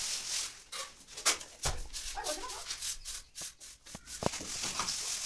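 Wooden float and steel trowel scraping and rubbing over fresh cement plaster on a brick wall, with a few sharp knocks of the tools against the wall.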